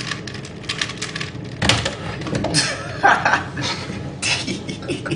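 Plastic Rubik's cube being turned quickly by hand, an irregular run of sharp clicks and clatter, with a heavier knock about a second and a half in.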